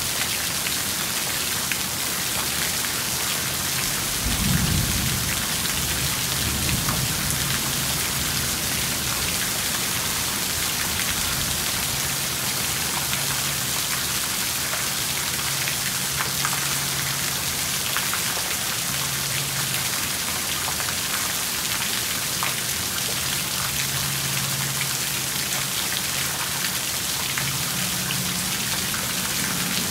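Heavy rain falling steadily on grass and a wet porch slab, with a low roll of thunder about four seconds in that rumbles on for a few seconds.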